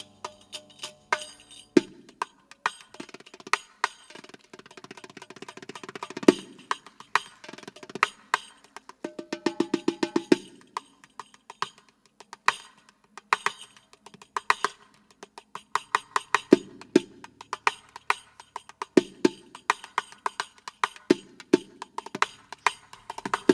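Riq, the Arabic frame tambourine, played in fast, intricate rhythmic patterns: crisp slaps and jingling of its small cymbals, with deeper strokes on the skin now and then. There is little or no other instrument under it.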